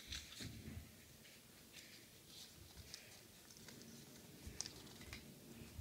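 Faint handling noises: soft scattered clicks and rustles as a small object is turned in the hands and set down on a carpeted floor, with a sharper click about four and a half seconds in.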